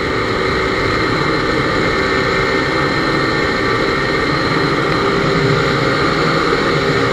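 Honda C70's small single-cylinder four-stroke engine running steadily at a cruising speed of about 50–60 km/h, with steady wind rush over the handlebars.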